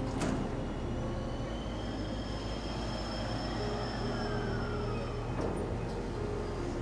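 JR East E233-3000 series electric train standing at the platform just before departure, its equipment giving a steady low hum with thin high whines. A short falling tone is heard in the middle, and there are two sharp clicks, one just after the start and one about five seconds in.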